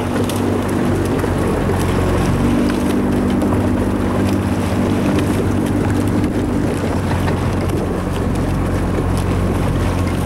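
Outboard motor of a coaching launch running steadily, with wind blowing on the microphone.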